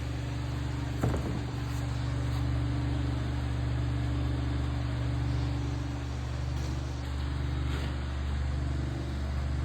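A steady low machine hum, with a single short knock about a second in.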